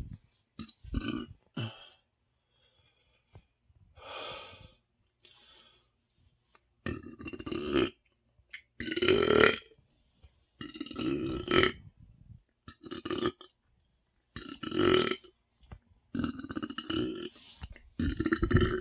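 A person letting out a series of deep burps from an overfull stomach, about ten in all with pauses between them. The first few are short and quieter; from about seven seconds in they are longer and louder.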